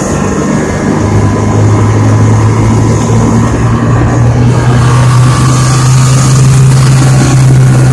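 Snowmobile engine running steadily while riding, heard from on board. A rushing hiss grows louder about halfway through.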